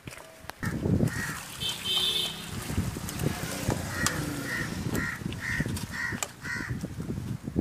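Close handling noise, rustling with knocks and clicks, as the camera and metal vessels are moved about. Over it a bird calls repeatedly, about twice a second, from about four seconds in.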